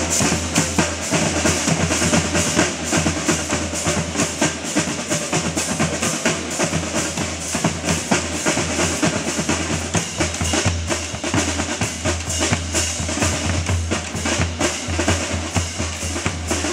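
Drum line of snare drums and bass drums playing a fast, dense stream of strokes throughout.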